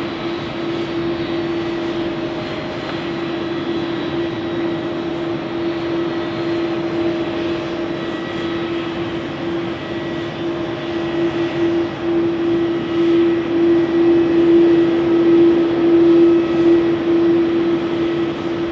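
Airbus A330-202 twin-engine jet airliner landing: steady jet engine noise with a constant low hum. It grows louder in the seconds after touchdown as the jet rolls out on the runway.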